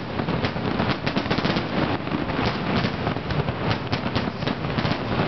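Crackle-effect fireworks bursting overhead: a dense, continuous stream of rapid small pops, like rattling gunfire.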